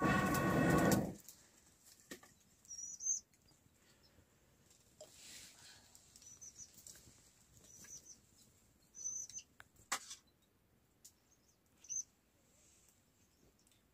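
A hard puff of breath blown through a fire blowpipe into a wood fire, hollow and slightly tonal, lasting about a second. Then short high bird chirps come several times, with a couple of sharp clicks, one near the ten-second mark.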